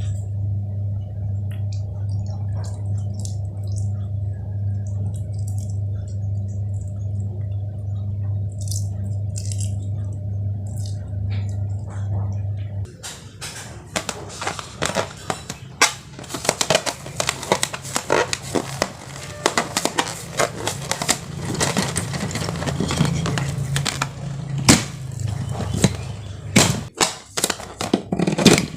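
A steady low hum for roughly the first half, which cuts off suddenly. It is followed by dense, irregular sticky crackling and clicking of slime being squished and mixed by hand.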